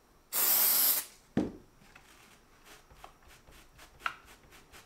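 One short spray, about two-thirds of a second long, from an aerosol can of CA glue activator (kicker) misted onto a freshly glued joint to cure the glue, followed by a knock about a second in as the can is set down, then faint handling and rubbing of the part.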